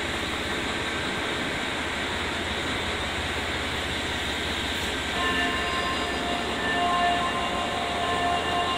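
Super Hokuto diesel limited express train pulling out of the station, its engines and running gear giving a steady rumble; from about five seconds in, intermittent high steady tones sound over it.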